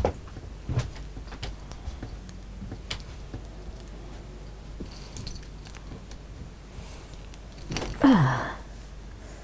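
Scattered light clicks, knocks and small clinks of someone moving through a cluttered room and brushing or handling small objects. About eight seconds in, a woman gives a short 'ah' that falls in pitch as she sits down, the loudest sound.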